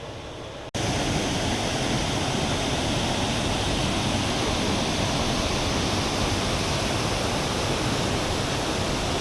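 Waterfall: a steady rush of falling water. Just under a second in it jumps abruptly from a quieter wash of water to a much louder, full, unbroken roar.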